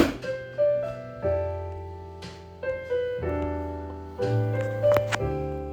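Background piano music: chords over bass notes struck every half second to a second. A sharp click sounds right at the start.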